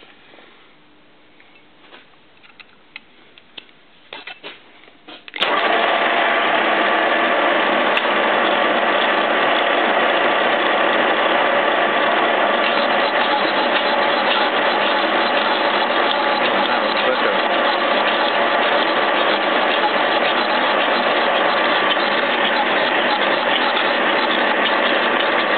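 A few faint clicks as a hex key sets the boring tool. About five seconds in, a horizontal boring machine starts suddenly and runs steadily: spindle and gears whine on several steady tones as the boring bar turns in a connecting-rod bore, taking a quarter-millimetre cut.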